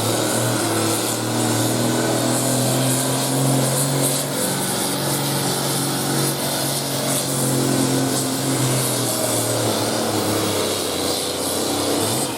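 Farm pulling tractor's engine running hard under load as it pulls the weight-transfer sled down the track: a steady, loud engine note that eases off about ten seconds in.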